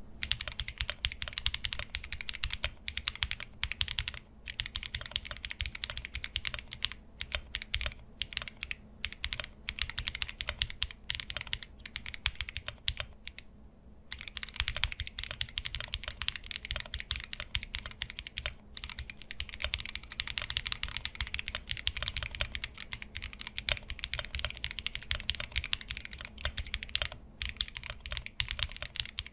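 Monsgeek M1 75% mechanical keyboard being typed on as a sound test. It is built with stock unlubed switches on its polycarbonate plate, with a PE foam sheet, all the included foams and painter's tape to cure a hollow case resonance. Rapid, continuous clacky keystrokes, with a short pause about halfway through.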